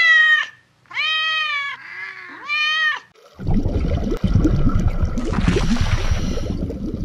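Domestic cat meowing three times in the first three seconds, each meow an arched call rising then falling in pitch. After that, a rough, noisy rumble fills the rest.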